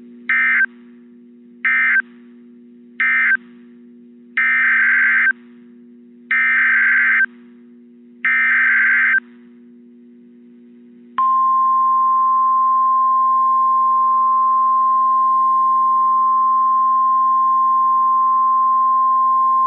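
NOAA Weather Radio Emergency Alert System data bursts: three short harsh, warbling SAME bursts marking the end of the tornado warning, then three longer SAME header bursts opening the next alert. About 11 seconds in, the steady single-pitch 1050 Hz warning alarm tone sounds. A faint low hum runs underneath.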